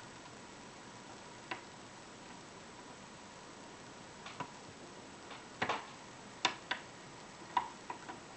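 Metal lock pick and tension wrench working a euro cylinder lock: irregular small clicks and taps as the hook lifts and sets pins, sparse at first and more frequent in the second half.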